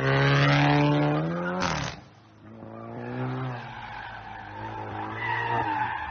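Sedan's engine revving hard as it accelerates away, its pitch climbing, then dropping off sharply near two seconds in. After that the engine is quieter and farther off, and a tyre squeal rises in the second half as the car slides through a turn.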